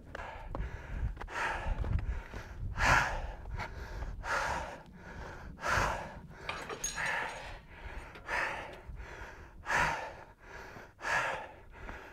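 A man breathing hard, a loud breath about every second and a half, out of breath from the steep scramble up to the summit.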